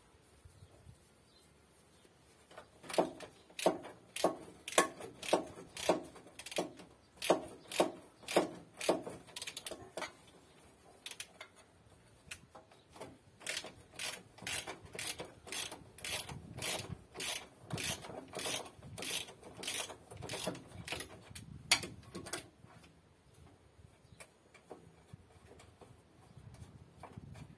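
Ratchet wrench clicking in short back-and-forth strokes, about one and a half a second, as a bolt on a tractor frame bracket is worked loose. A pause comes about ten seconds in, then the strokes resume more softly, with one sharp metal click a little past twenty seconds.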